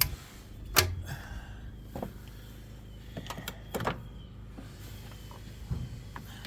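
Scattered clicks and clanks of hand tools against metal as pliers work a spring hose clamp onto the upper radiator hose; the sharpest clank comes about a second in, with a few lighter taps after.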